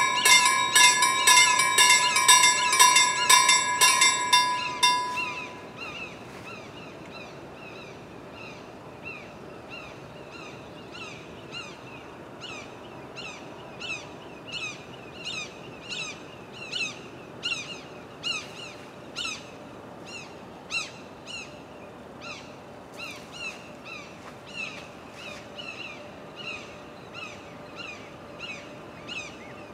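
Level-crossing warning bell ringing in rapid strikes over a steady tone, then stopping about five seconds in as the barriers rise and the warning ends. After that, a bird calls over and over with short, high, falling chirps.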